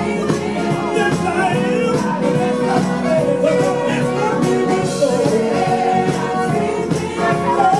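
Live Motown and Northern Soul band playing, with a male lead singer singing into a handheld microphone over electric guitar and saxophone.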